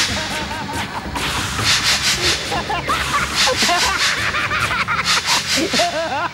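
A rapid, breathy cackling laugh, pulsing about five times a second, with squeaky rising and falling voice sounds mixed in.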